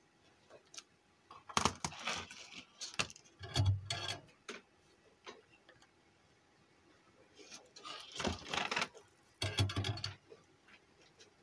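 Clatter and rattling from handling a home-theatre amplifier circuit board and small parts on a workbench, coming in two spells of short bursts, each with a dull knock.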